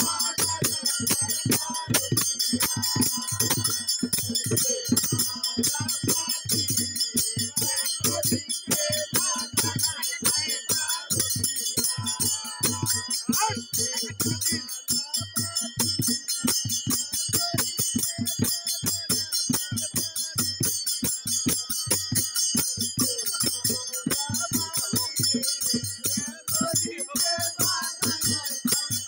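Village Holi folk song: a drum beats a fast, steady rhythm under the constant jingle of small brass hand cymbals, with men's voices singing over it.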